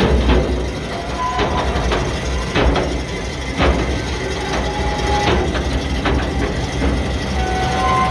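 A tractor-driven Joskin Tornado M1012V manure spreader running: a steady low engine rumble under irregular metallic clanks and knocks, about one or two a second, with brief squeaks of metal on metal.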